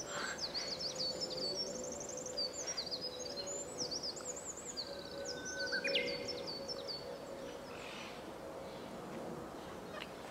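Small birds chirping and trilling: a busy run of short calls for the first seven seconds or so, then only a few, over a steady hiss with a faint steady hum underneath.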